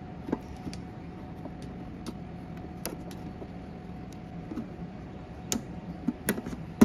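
Scattered light clicks and taps of hands working on a plastic-panel UV curing box, snapping small rubber bands over the hooks that hold the panels together, with a few sharper clicks near the end. A faint steady hum runs underneath.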